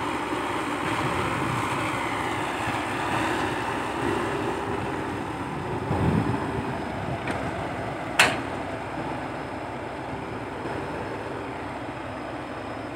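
Komatsu PC120-5 hydraulic excavator running steadily as it swings its boom back from the truck and digs into the pit. A low thump comes about six seconds in and a single sharp clank a little after eight seconds.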